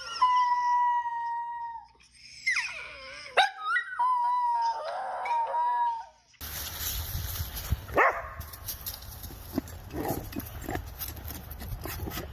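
Dog howling: a long held howl, a shorter rising one, then another sustained howl. It cuts off abruptly about halfway through, giving way to a noisier recording with one short sharp cry.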